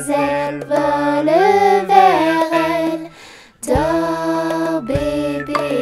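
A lullaby sung in a high, soft voice, the melody gliding between held notes, with a brief pause about three seconds in.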